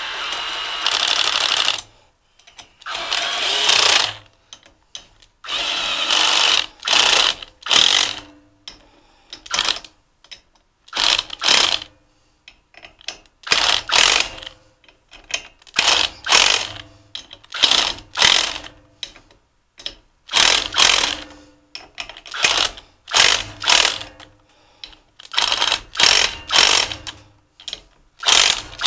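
Cordless impact driver running in bursts, driving and snugging bolts into a kerosene forced-air heater's metal housing. Three longer runs of one to two seconds come first, then many short bursts, often in pairs, as each bolt seats.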